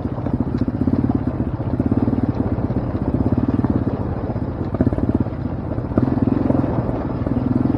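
Off-road vehicle engine running at trail speed, its note swelling and easing with the throttle as it rides over loose rock.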